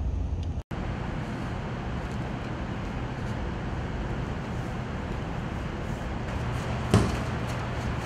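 Steady rushing background noise, with a single sharp knock about seven seconds in.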